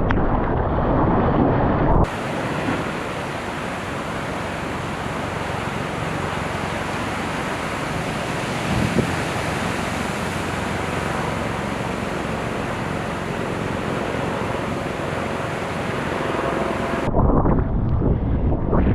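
Wind buffeting the microphone with a low rumble, switching abruptly about two seconds in to a steady hiss of ocean surf and rushing whitewater, with the wind buffeting returning near the end.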